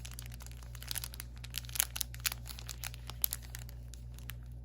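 Small plastic bags of diamond painting drills being handled, crinkling with irregular sharp clicks and rustles, over a steady low hum.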